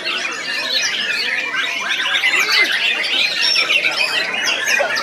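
White-rumped shama (murai batu) singing a continuous, rapid stream of varied chirps, whistles and harsh squawks with no pauses.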